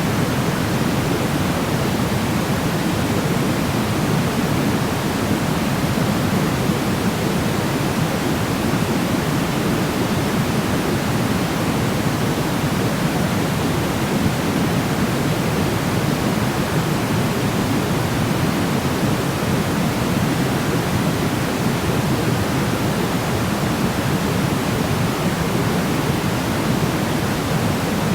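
Steady sleep noise, an even, unchanging rush with more weight in the lows than a thin hiss, like pink noise.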